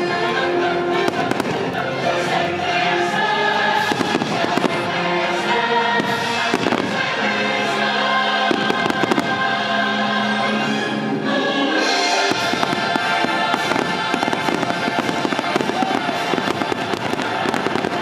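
Aerial fireworks bursting and crackling in rapid succession over a choral music soundtrack. The music ends about twelve seconds in, leaving a dense run of firework explosions and crackle.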